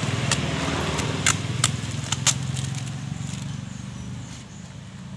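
Thin plastic bag crinkling and tearing as it is pulled off a seedling's root ball, a few sharp crackles in the first two and a half seconds. Under it a steady low engine hum that fades away toward the end.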